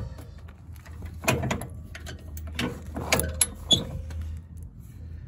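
A few scattered short knocks and clicks over a steady low hum.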